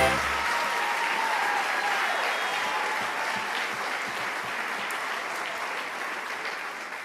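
Audience applauding in a hall, with a few shouts among the clapping, slowly dying away.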